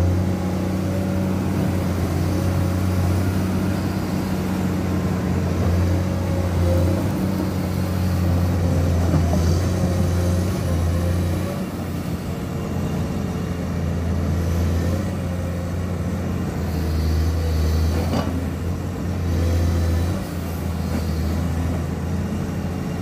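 Komatsu PC210 hydraulic excavator's diesel engine running steadily under working load, swelling a little as the machine digs and moves its boom and bucket.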